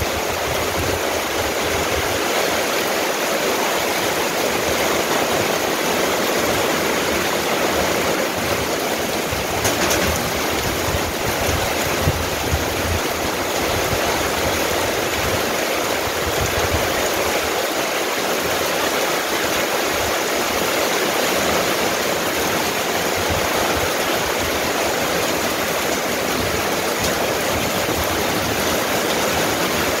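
Steady heavy rain pouring down, an even, unbroken hiss of water.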